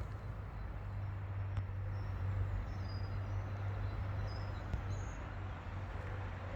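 Outdoor forest ambience: a steady low rumble with a few faint, short high bird chirps.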